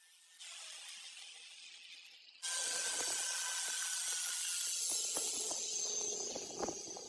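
A steady hissing spray, faint at first, then suddenly much louder about two and a half seconds in, and fading near the end.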